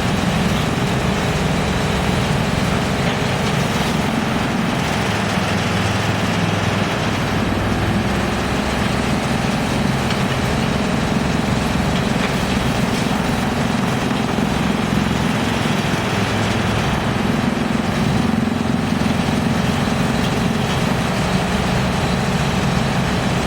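Industrial drum wood chipper with a 220 kW main motor, running steadily. A loud, even mechanical din with a low hum underneath.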